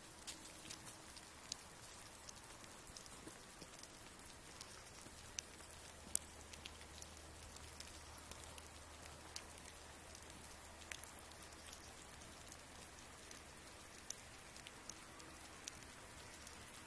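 Faint, scattered patter of small drips and ticks over quiet, near-silent snowy air, with a faint low hum through the middle part.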